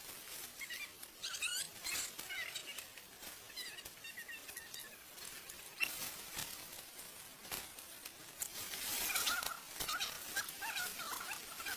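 Small animals calling in short, high, wavering chirps, over scattered sharp clicks and a brief rustling hiss about nine seconds in.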